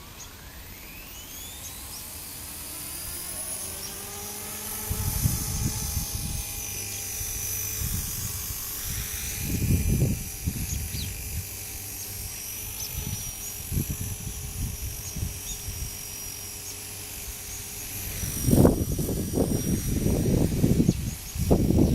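Align T-REX 250 electric RC helicopter spooling up, its motor and rotor whine rising in pitch over the first few seconds, then holding steady. Strong wind buffets the microphone in gusts, heaviest near the end.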